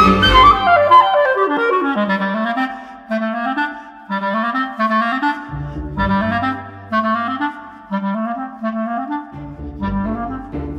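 Clarinet playing fast, repeated rising runs in its low register. A low accompaniment joins about halfway through, drops out briefly, and comes back near the end.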